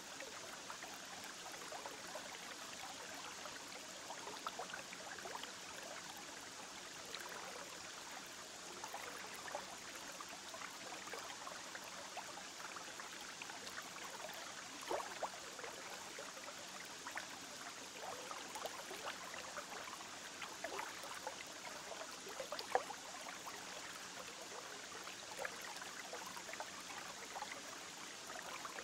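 Steady trickle of aquarium water with many small plinks of drops and bubbles, a few of them louder about halfway through and later on.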